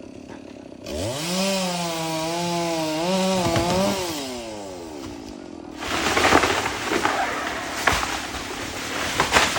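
Stihl chainsaw idling, then revved up sharply about a second in and held at high speed for a few seconds before the engine note falls away. From about six seconds in comes a loud, rough sawing noise with sharp cracks as the chain cuts into wood.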